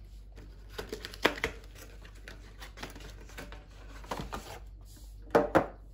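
Cardboard packaging box being torn and pulled open by hand to free a metal trading-card tin: scattered scrapes and taps, with two sharp knocks near the end.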